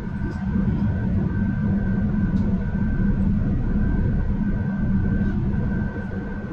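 Electric commuter train running on the rails, heard as a steady low rumble with a constant hum of several even tones on top.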